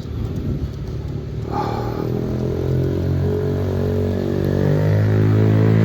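A motor vehicle's engine running at a fairly steady pitch, growing louder over the last few seconds as it approaches.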